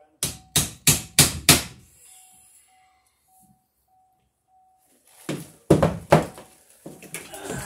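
Hammer driving nails to fix a plastic electrical box to a wooden ceiling joist: five quick, sharp blows about three a second, then, after a pause, another cluster of knocks about five seconds in.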